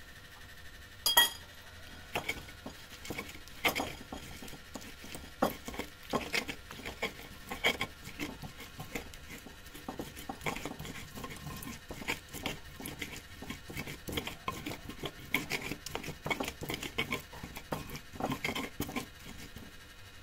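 Cutlery and dishes clinking and scraping in irregular light taps, with one sharp ringing clink about a second in.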